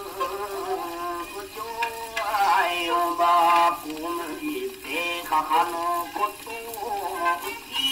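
Naniwa-bushi (rōkyoku) played from an old 78 rpm record on a gramophone: a male narrator-singer holds long, wavering, ornamented sung lines over shamisen accompaniment, with crackling, hissing record surface noise throughout.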